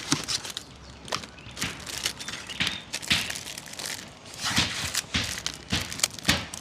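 Hard crackers crunching and breaking in a run of irregular, crackly crunches, several louder ones in the second half.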